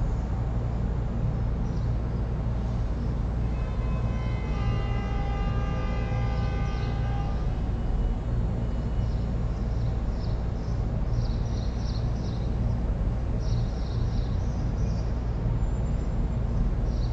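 Steady low hum and hiss of room background noise. About four seconds in, a held chord of several steady tones sounds for roughly three and a half seconds, then fades. Faint short high chirps come in the second half.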